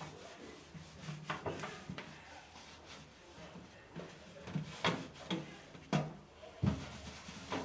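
Scrubbing pad rubbing and scraping on the inside of a cooker's oven in irregular strokes, with a heavier knock near the end.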